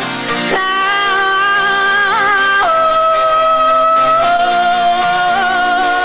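Woman singing live with a powerful, wavering voice: one long held high note that steps down about two and a half seconds in and is held again, over guitar accompaniment.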